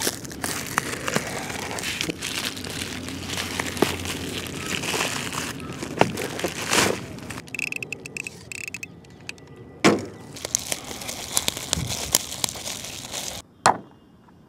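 Clear plastic shrink wrap crinkling and tearing as it is cut and peeled off a small plastic box. Later come scattered clicks and snaps of handling, and a sharp click near the end as the hard plastic case is opened.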